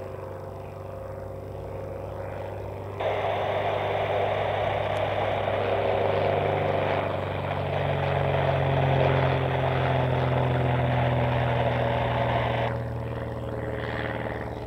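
Slingsby T67M Firefly's single piston engine and propeller droning in an aerobatic display, its pitch shifting slightly as it manoeuvres. A louder, harsher rush comes in suddenly about three seconds in and drops away near the end.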